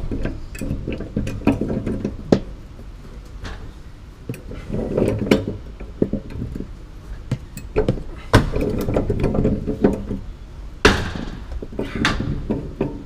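Ridgid Stillson pipe wrench turning a threaded steel sprinkler-pipe fitting loose: irregular metallic clicks and knocks as the wrench jaws bite, slip and re-grip, with a few longer stretches of scraping.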